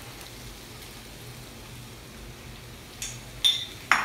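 Chicken frying faintly on a tawa while chopped tomato is tipped in, a soft steady sizzle. Near the end come three sharp clinks and knocks against the pan, the loudest two in quick succession.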